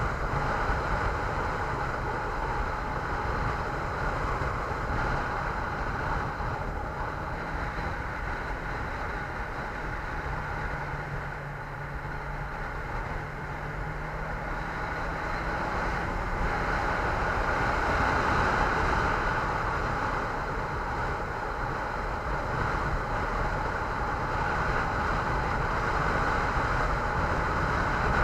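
Steady rush of wind and road noise from a moving ride, easing a little around the middle and building again in the second half. A faint low hum shows up for a few seconds near the middle.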